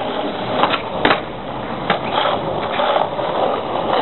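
Skateboard wheels rolling on pavement, with a few sharp clacks of the board, the loudest about a second in.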